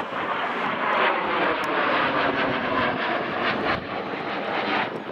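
Jet noise from a pair of twin-engine F/A-18 Hornet fighters taking off together at full power, the lead jet on afterburner. A steady, heavy rush with faint sweeping tones in it, easing a little near the end.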